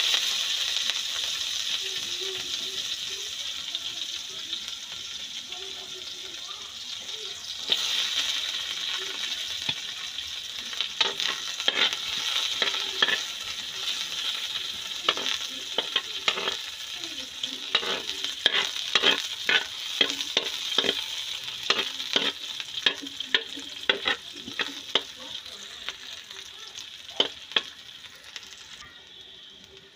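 Garlic and onion sizzling in hot oil in a wok, the sizzle fading gradually. From about eight seconds in come frequent sharp clicks and scrapes as they are stirred in the pan.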